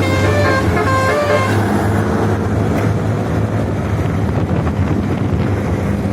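Bus telolet horn playing a quick melody of short stepped notes that stops about two seconds in, over the bus's engine running steadily beneath and after it.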